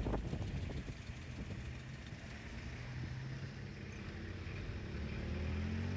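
Road vehicle engine running close by, a low steady hum whose pitch rises near the end as it speeds up.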